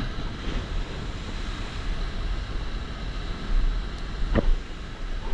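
Wind buffeting the microphone in gusts, over the steady wash of surf on the beach.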